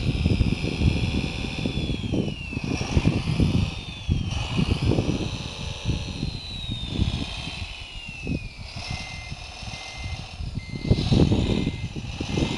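A 1/14-scale RC Komatsu WA470-6 wheel loader driving on gravel: its electric motors whine, falling and rising in pitch as it changes speed, over heavy wind noise on the microphone. From about nine seconds in, a short beep repeats steadily.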